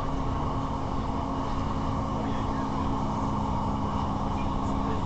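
Class 158 diesel multiple unit running at speed, heard from inside the carriage: a steady low engine drone over the rumble of wheels on the rails.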